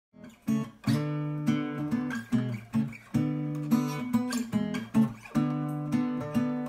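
Intro music: strummed guitar chords, struck in a steady rhythm about twice a second, starting about half a second in.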